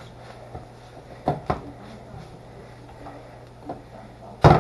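A spatula stirring and scraping chopped food in a nonstick skillet, with light clicks and two knocks about a second and a half in. Near the end comes a quick run of loud knocks against the pan, all over a steady low hum.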